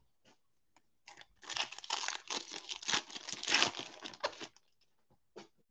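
Foil trading-card pack wrapper being torn open and crinkled by hand: a run of crackling and tearing from about a second in until about four and a half seconds in, with a few small clicks before and after.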